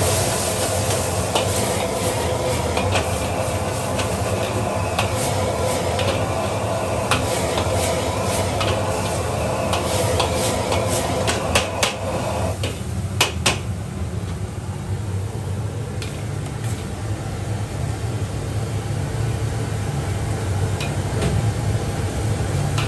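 Minced beef sizzling and frying in a wok while a metal ladle stirs it, scraping and clanking against the pan, over a steady low rumble. The sizzle drops away after a few sharp clanks about 13 seconds in, leaving the low rumble and occasional ladle clinks as the food is scooped out.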